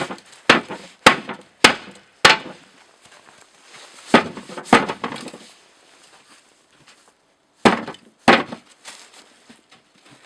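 Heavy knocks on the cast-iron body of a Jøtul 606 wood stove, struck to drive a panel loose. There are five blows about half a second apart, then two pairs of blows a few seconds later. The panel does not come free because two screws still hold it.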